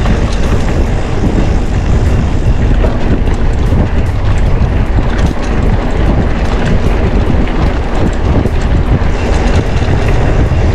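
Mountain bike rattling and jolting over a rough, bumpy dirt road: the tyres roll on the dirt, with many small knocks and clatters from the bike, under heavy wind rumble on the microphone.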